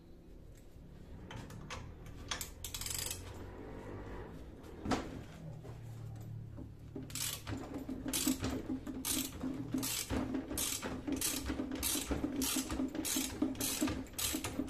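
Hand ratchet wrench clicking as it winds back the threaded rods of a coil-spring compressor, releasing the spring onto a front suspension strut. After a few scattered clicks and knocks, the clicking settles about halfway through into a steady rhythm of two to three clicks a second.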